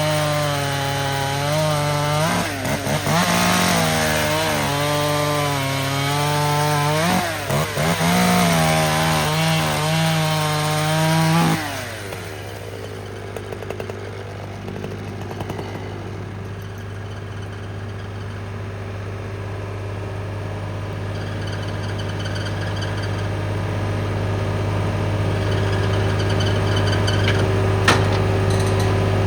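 Pioneer P50 chainsaw running at high revs and cutting wood, its pitch dipping twice under load, then winding down about twelve seconds in. After that, the Case 485 tractor engine runs steadily, slowly getting louder.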